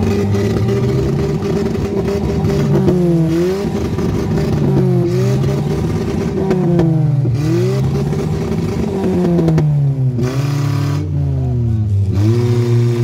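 A Volkswagen Polo's petrol engine revved hard and held at high revs, the revs sagging and climbing back again five or six times.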